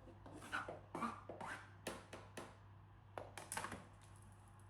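A series of short scrapes and light knocks, about eight spread over the first four seconds: shredded carrot being scraped and tipped into a pot.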